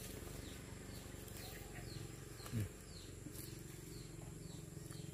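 A bird chirping over and over, short high falling chirps about two a second, over a steady low hum. A brief low sound about halfway through is the loudest thing.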